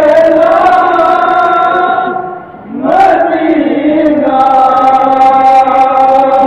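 Men of an anjuman chanting a nauha, a Shia mourning elegy, in unison. It comes in two long phrases of drawn-out, held notes, with a short break about two and a half seconds in.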